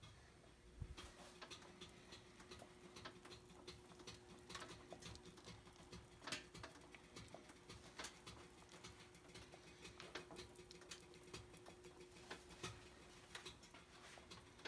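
Faint, irregular crackling and ticking of a beef roast's fat and juices spattering in the roasting pan in a hot oven, over a steady faint hum. A dull thump comes about a second in.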